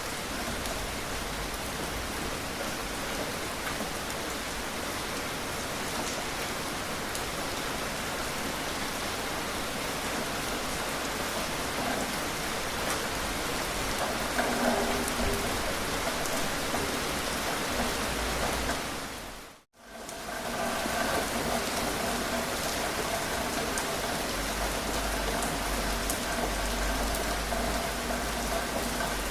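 Steady rain falling, an even hiss of drops on a surface. About two-thirds of the way through it drops out to silence for a moment and comes straight back. After that a faint steady hum sits underneath.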